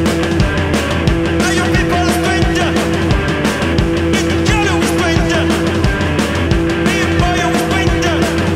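Electric guitar and drum kit playing loud rock live, with a steady drum beat under held guitar chords; a singer's voice comes in about halfway through.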